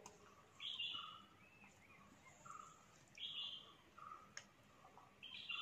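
Faint bird calls repeating: a short, higher call about every two and a half seconds over shorter, lower notes coming a little faster, with a faint click about four seconds in.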